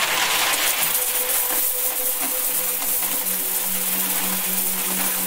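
A stream of coins pouring into a metal box and clinking on the pile, a dense, continuous jingle. About halfway through, a steady low hum-like tone comes in underneath.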